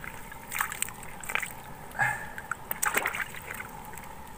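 Sea water splashing in a few short bursts against the side of a small boat as a cuttlefish is handled and lifted out at the surface by hand.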